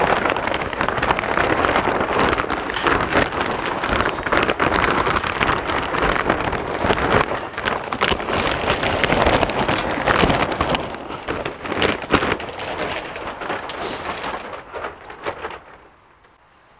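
Heat-welded polyethylene film cover crackling and rustling as it is pulled and draped over a metal frame, a dense run of crinkling that dies away over the last couple of seconds.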